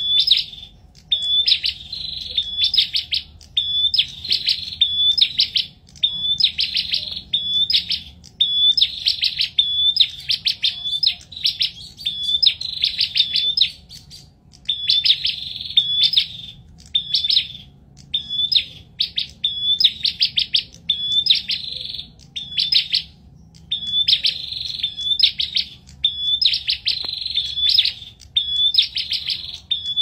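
Prenjak (prinia) songbirds singing in a duel: loud, fast phrases of sharp, high repeated chirps, each about a second long, following one another with short gaps.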